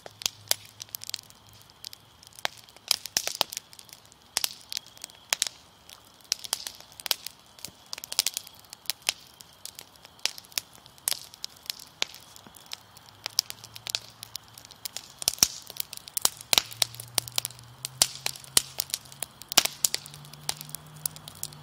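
Wood fire crackling, with irregular sharp pops and snaps, some louder ones near the end.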